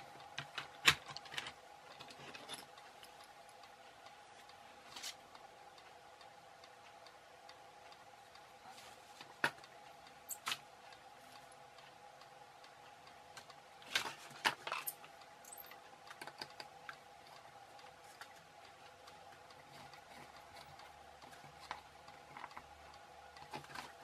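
Scattered light clicks and taps of a small circuit board and wires being handled on a cutting mat, several close together about a second in and again about halfway, over a faint steady hum.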